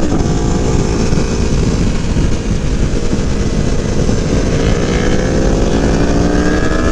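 Aprilia Tuono V4 1100 motorcycle's V4 engine running at speed on track under heavy wind noise, its pitch climbing steadily over the last few seconds as it accelerates.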